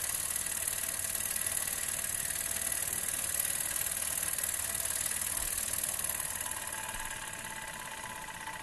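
Small vertical single-cylinder model steam engine running fast, a rapid even beat over a steady steam hiss, getting a little quieter near the end.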